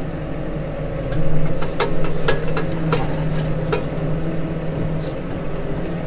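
Case Maxxum 150 tractor's six-cylinder diesel engine running steadily, heard from inside the cab. It gets louder about a second in as the Kverneland reversible plough is lifted out of work, with a handful of sharp clicks and knocks through the middle.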